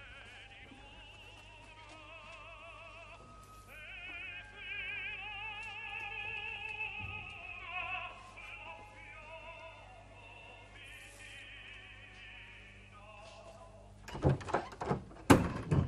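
Operatic singing with a strong vibrato, playing from a small portable device. Near the end, a quick run of loud knocks at a door.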